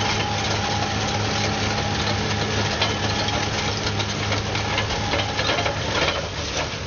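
Heavy machine's engine running at a steady speed with continual metallic clatter and knocking; near the end the steady engine note drops away amid a burst of clatter.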